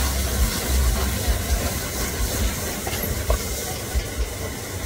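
Flames flaring up around a wok on an open fire stove, with a low rumble that is strongest in the first second, over a steady sizzling hiss from steak frying in the pan.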